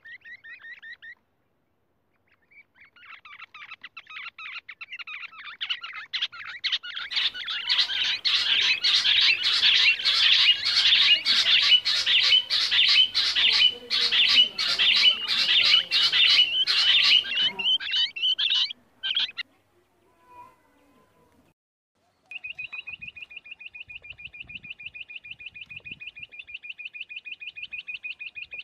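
Rock bush quail calling in rapid, rattling trills. A short trill ends about a second in. After a pause the trills build into a loud, dense overlapping chorus with sharp clicks through it, which stops at about nineteen seconds. After a few seconds of silence a single steady, evenly pulsed trill starts up.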